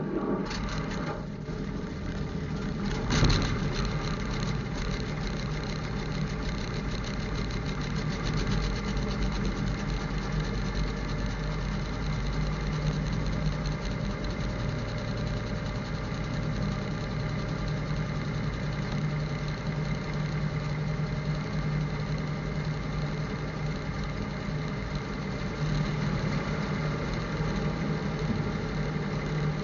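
A 1952 REO M35 2½-ton army truck's gasoline inline-six engine, running at a steady idle after finally starting. There is one sharp bang about three seconds in.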